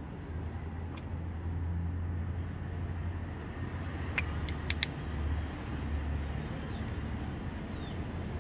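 Light metallic clicks of piston rings being handled and fitted onto a piston: one about a second in and three close together around the middle, over a steady low background rumble.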